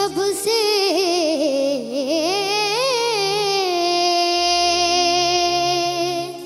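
A boy's solo singing voice in a wordless alaap: quick ornamented runs that wobble, dip and climb back up, then one long held note from about halfway through, with faint instrumental accompaniment beneath.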